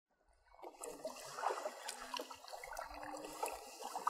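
Water lapping and trickling around a paddled kayak, with small irregular splashes and ticks; it fades in over the first half second.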